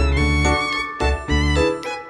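Background instrumental music: a melody of held notes changing every fraction of a second over a strong bass line.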